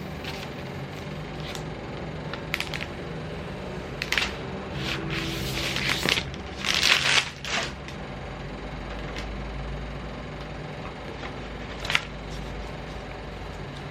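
Packaging being handled: crinkling and rustling with a few sharp clicks, loudest about five to seven and a half seconds in, over a steady low hum.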